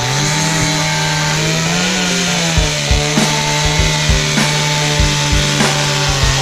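Petrol chainsaw running under load as it cuts through a log, its engine note rising briefly about two seconds in. Background music plays along with it.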